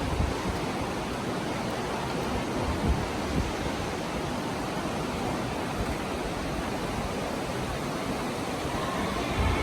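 Steady rushing noise of flowing water, with irregular low rumbles underneath.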